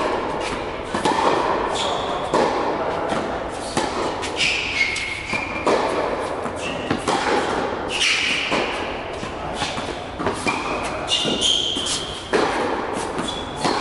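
Tennis balls struck by racket strings and bouncing on the court during a baseline rally, a sharp knock every second or so, ringing in the hall. Short high squeaks of tennis shoes on the court fall between the hits.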